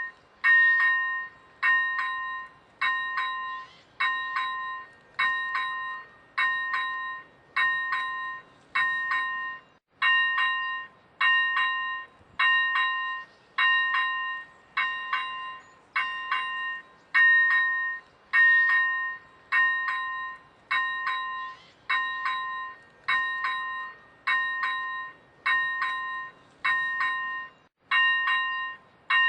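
Czech railway level-crossing warning bell ringing, an even, repeated bell-like ding a little more than once a second, each one dying away before the next.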